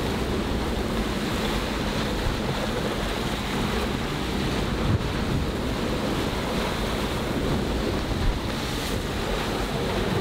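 Storm wind of about 35 knots buffeting the microphone over the steady rush of breaking waves around a sailing catamaran at sea, with a couple of brief louder surges.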